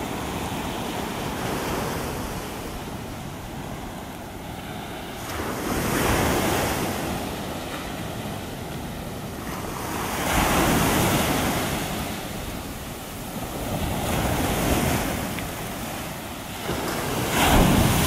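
Heavy Gulf of Mexico surf breaking and washing up the beach: a steady rush that swells with four breakers about four seconds apart, the last and loudest near the end. Wind buffets the microphone throughout.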